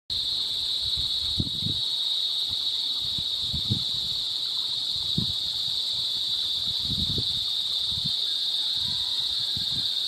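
Steady, high-pitched chorus of insects, an unbroken shrill drone, with soft low bumps now and then.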